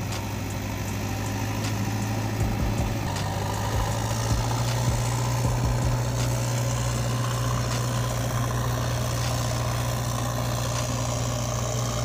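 Steady idling engine drone, a low even hum with no revving, as of a heavy machine's diesel engine at idle.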